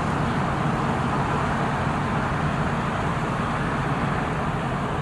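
Steady road traffic noise, an even rumble of passing vehicles with no single event standing out.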